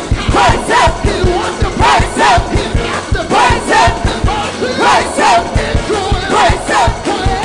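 Fast gospel band music with a driving beat of about four to five strokes a second, with a congregation shouting over it.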